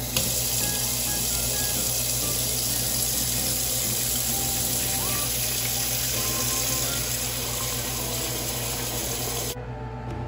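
Tap water pouring steadily into a stainless steel pot, filling it. The flow cuts off suddenly near the end.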